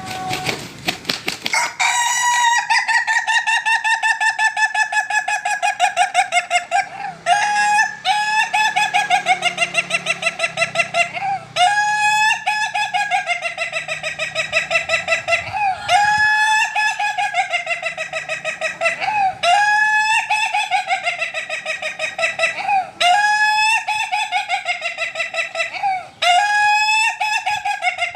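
Chicken calling in long, rapidly pulsing, wavering phrases of several seconds each, with only brief breaks between them.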